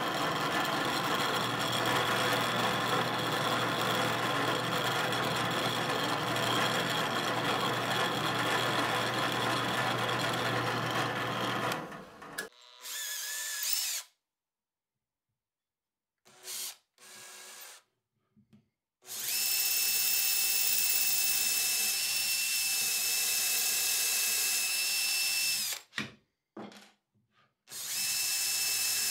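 A drill press running and boring into plywood for about twelve seconds. After a few short breaks, a cordless drill drills into a plywood block with a steady high whine, in two runs, the second starting near the end.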